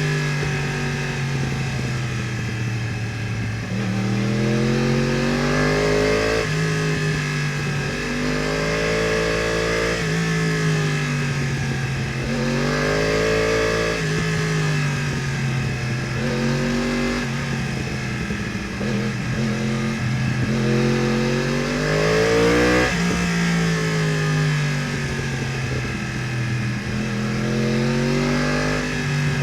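2015 Yamaha R1 crossplane inline-four with Akrapovič headers and exhaust, ridden hard; the engine pitch repeatedly climbs and then falls away.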